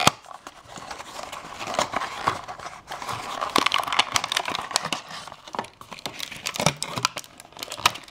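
A small cardboard puzzle box is opened by hand, its flaps and sleeve rustling and clicking as the puzzle slides out, and a thin plastic bag crinkles near the end as the puzzle is unwrapped.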